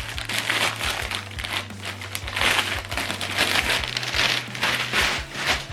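Packaging crinkling and rustling in uneven surges as it is handled and pulled away from the speaker.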